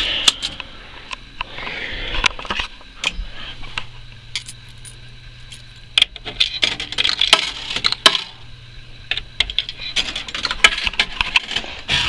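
Coins clinking and dropping: a run of sharp metallic clicks, thickest around the middle and again near the end.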